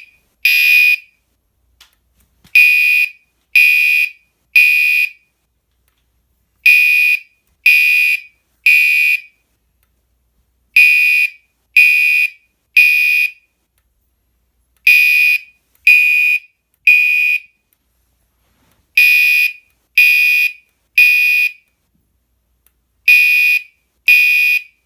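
Fire alarm sounding the temporal-three evacuation pattern: loud, high-pitched beeps in groups of three about a second apart, each group starting about every four seconds.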